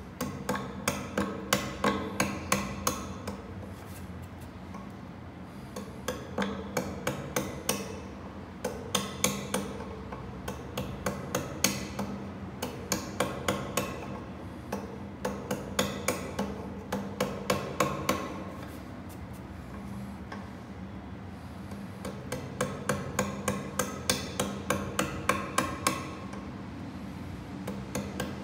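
Hand chisel paring the protruding end of a leg tenon flush with a wooden stool seat: a quick run of sharp clicks, several a second, as each short stroke cuts a chip from the end grain, with two brief pauses along the way.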